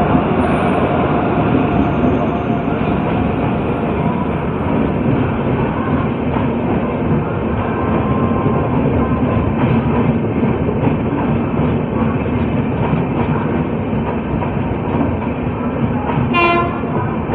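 Indian Railways electric locomotive and its passenger coaches passing close by: a loud, steady rumble of steel wheels on the rails.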